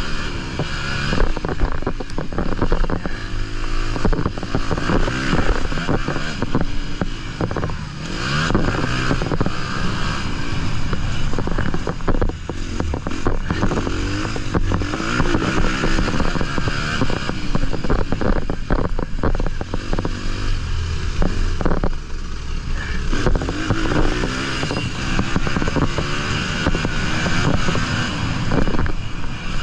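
Honda 250 motocross bike engine heard from the rider's onboard camera, revving up and dropping back again and again as it rides round a dirt track. Wind rushes on the microphone and the bike clatters over the bumps.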